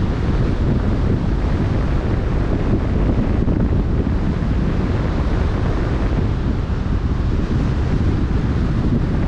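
Wind buffeting the microphone in a steady low rumble, over the wash of choppy open sea.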